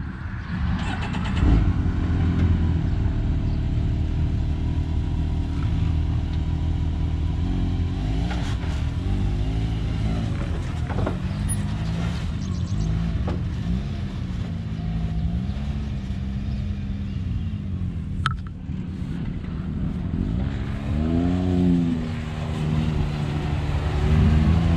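Can-Am Maverick X3 X MR Turbo RR's turbocharged three-cylinder engine running at low speed, with repeated short throttle blips that raise and drop its pitch as the side-by-side is driven down off a trailer.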